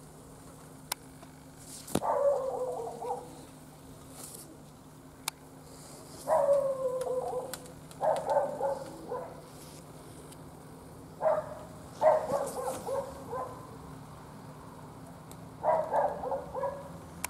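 An animal calling about six times, each call lasting roughly a second and made of quick notes that drop in pitch.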